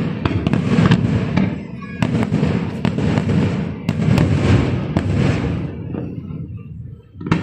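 Fireworks going off in a rapid volley of bangs and crackling, dying away about six seconds in.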